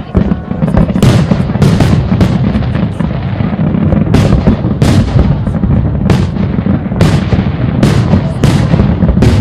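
Fireworks display: aerial shells bursting over a continuous low rumble, with a dozen or more sharp bangs coming at irregular intervals.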